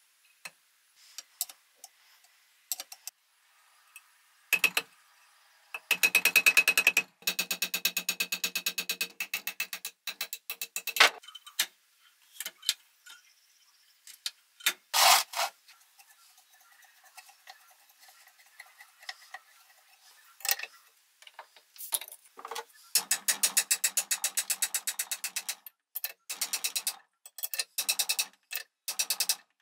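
Runs of rapid, evenly spaced metallic clicks, a few seconds each, with scattered single knocks and taps between them, from work on the machine's metal parts.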